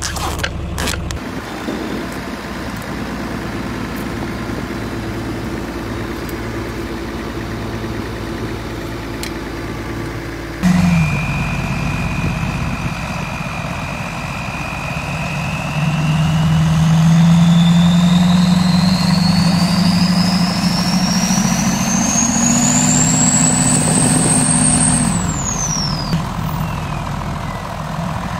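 Diesel engines idling steadily for about ten seconds, then a Duramax diesel pickup in four-wheel drive revving hard under load as it pulls against a John Deere tractor, with a high whine that climbs steadily for about twelve seconds and then drops away near the end.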